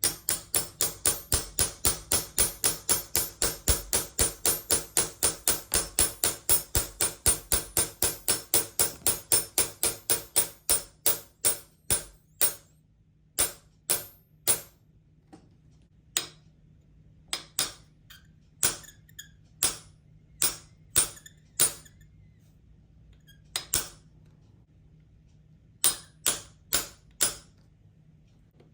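Light hammer taps, quick and even at about four a second for some ten seconds, then slowing to scattered single taps.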